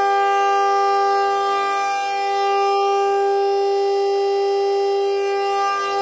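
Homemade mechanical air raid siren, a 3D-printed rotor and stator spun by an electric induction motor, with cones on its eight outputs, sounding at full speed: one loud steady tone rich in overtones, tuned to about G4, held at constant pitch with a slight dip in loudness about two seconds in.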